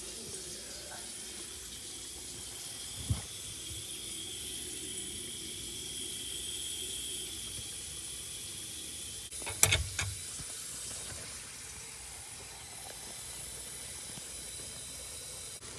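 Water running steadily into a sink, heard from inside the cabinet below while the drain and supply lines are checked for leaks. There is a knock about three seconds in and a louder, sharp clatter near ten seconds.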